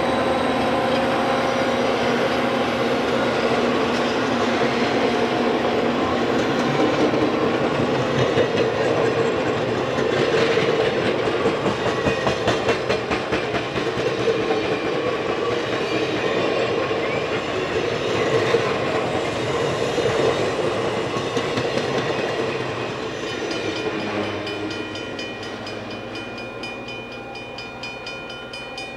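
Amtrak train of EMD F40PH diesel locomotives and double-deck Superliner cars rolling past. A steady engine drone at first gives way to the rumble and clickety-clack of the cars' wheels on the rails, which fades as the train draws away near the end.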